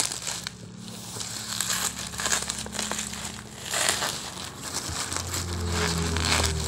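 Plastic packaging bag crinkling and rustling in irregular bursts as it is handled right up against the microphone.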